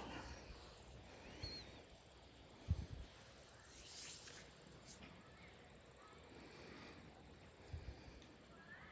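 Faint front-yard ambience: a few scattered, faint bird chirps over a steady, faint high-pitched tone, with a brief hiss about four seconds in and a couple of soft low thumps.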